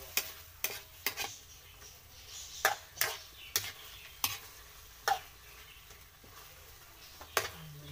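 Metal spatula stirring chicken pieces in sauce in a metal wok: about ten sharp, irregular knocks and scrapes of metal on metal over a steady sizzle of frying.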